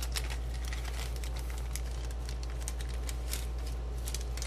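Scattered small clicks and light rustling of small electronic parts being handled on a workbench, over a steady low hum.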